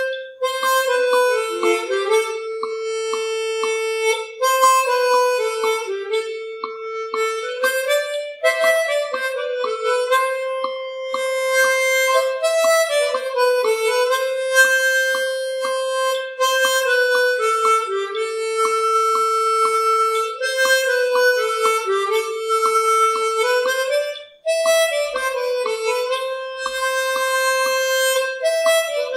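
Background music: a wind instrument playing a slow melody of held notes, over soft regular ticks.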